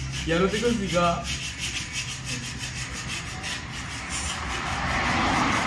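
Hand rubbing along the rim of a bare alloy motorcycle wheel, cleaning it before the tubeless tyre goes on: a rough rub in quick repeated strokes that grows louder near the end.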